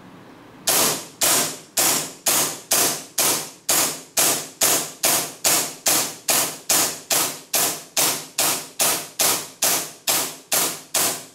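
WE Hi-Capa gas blowback airsoft pistol firing a steady string of some two dozen semi-automatic shots, about two to three a second. Each shot is a sharp crack of gas discharge and slide blowback, starting just under a second in.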